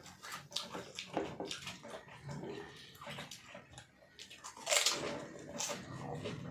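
Close-up eating sounds: people chewing, smacking and slurping their food, with many short wet clicks and a louder noisy burst about five seconds in.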